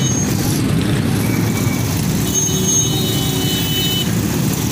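Motorcycle engines running close by in slow, jammed street traffic: a steady, rough low rumble. About halfway through, a thin high squeal rises above it for about a second.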